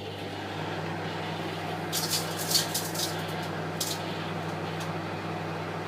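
Microwave oven running with a steady hum while a CD inside it arcs. Sharp crackles of sparks across the disc's metal layer come about two seconds in, a few more over the next second, and once more near four seconds.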